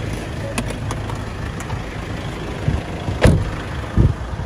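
Steady low rumble of road traffic and idling car engines, with a sharp knock about three seconds in and a dull thump a moment later.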